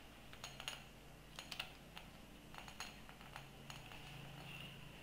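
Faint, irregular metallic clicks and clinks as a metal rod with a wing nut is screwed by hand into a scanner's head unit.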